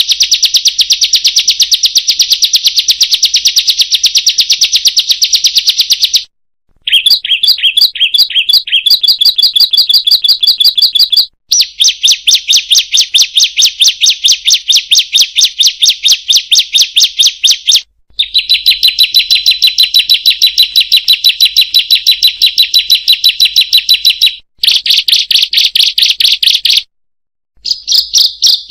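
A small songbird's call, a fast unbroken run of high-pitched 'kriek' notes, many a second, going on for several seconds at a time with brief pauses between runs.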